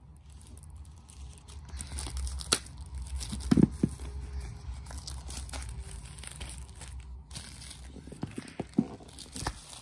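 Clear plastic shrink-wrap being pulled and torn off a cardboard box, crinkling and crackling irregularly, loudest about a third of the way through.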